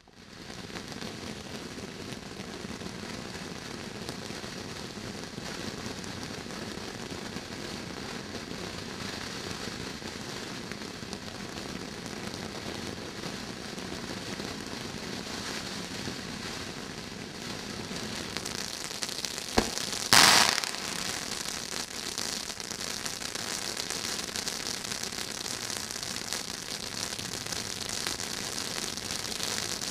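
Brothers 'Pure Fantasy' ground fountain firework spraying sparks with a steady hissing crackle. About twenty seconds in comes a sharp crack, then a louder bang.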